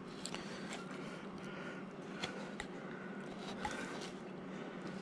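Upsweep carving knife paring shavings from a wooden figure by hand: several faint, short cutting snicks spread through, over a low steady hum.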